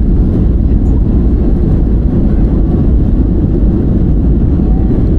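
Airliner cabin noise: a steady, loud low rumble of engines and rushing air, heard from inside the passenger cabin during the landing.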